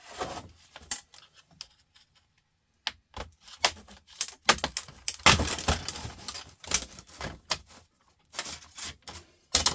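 A flathead screwdriver prying at a laptop's plastic back cover: irregular clicks, creaks and scrapes as the plastic clips are worked loose, with a louder cluster of snaps about halfway through.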